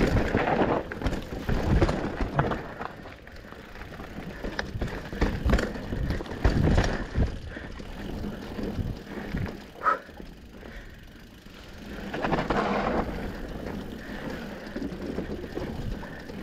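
Mountain bike riding down a dirt trail: tyres on dirt, with the bike knocking and rattling over bumps, louder at the start and again near the end. A short squeak comes a little past the middle.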